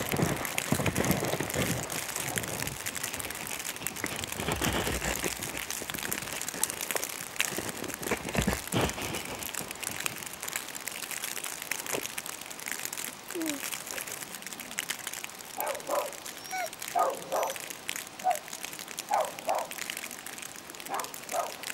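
Rustling crackle from a plastic cover over the microphone, then, in the second half, a dog barking at a distance in short, separate barks.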